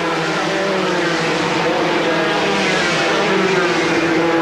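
Several Formula 3 racing cars' two-litre four-cylinder engines running at high revs together as the group comes by. Their pitch sinks slowly.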